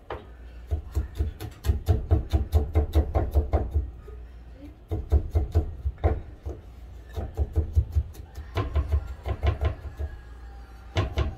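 Chef's knife chopping garlic on a wooden cutting board: runs of quick knocks, about five a second, broken by short pauses.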